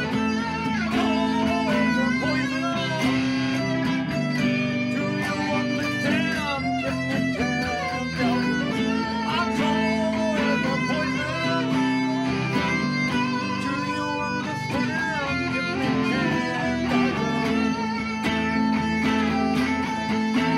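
Electric guitar music: an Epiphone Les Paul Studio played along with a song, with many bent, wavering notes.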